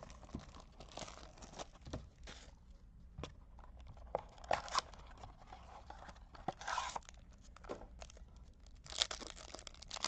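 Trading card pack being torn open and its wrapper crinkled, in short, scattered rips and rustles, the loudest about four, seven and nine seconds in.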